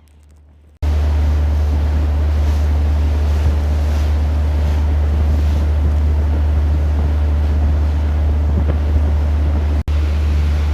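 Wind buffeting the microphone on a moving passenger ferry, over a steady low drone of engine and water. It cuts in abruptly about a second in and drops out for an instant near the end.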